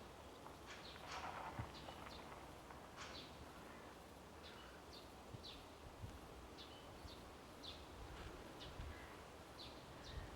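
Faint bird chirps, short high calls repeated every second or so, over a soft rustle of wind in the trees.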